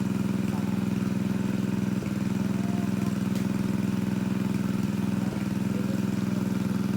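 Engine of a water pump running steadily at constant speed, pumping water out of a fish pond.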